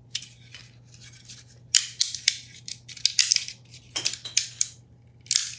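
PLA support material crackling and snapping as it is broken away by hand from a 3D-printed part, in irregular clusters of sharp cracks, loudest about two to four seconds in.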